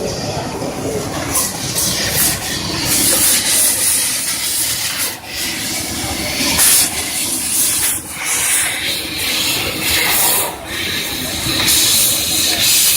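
Fiber laser cutting machine running, with a loud hiss of assist gas from the cutting head. The hiss drops out briefly a few times, about five, eight and ten seconds in.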